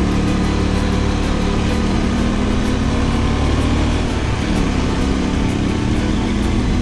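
Off-road motorcycle engine running steadily under way, its note rising and falling slightly with the throttle.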